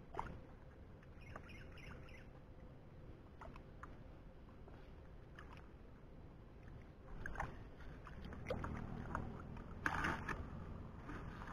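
Hands sloshing and splashing in muddy water at the bottom of a small dug hole while groping for fish, with scattered faint wet splashes that grow busier and louder in the second half.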